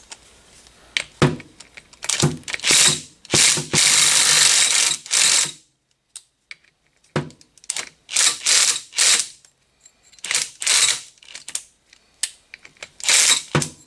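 Ratchet wrench clicking in several bursts, working the 10 mm bolts of an engine's water pump.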